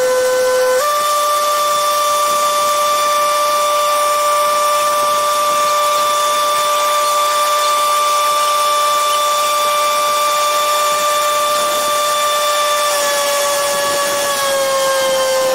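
Marine travel lift's hydraulic drive whining steadily as it lowers a catamaran in its slings. The whine steps up in pitch about a second in and drops back down in two steps near the end.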